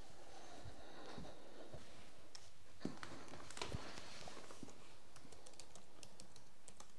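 Soft steps and a few dull handling thumps as someone comes up close to the recording device, then a quick run of light, sharp keyboard clicks near the end.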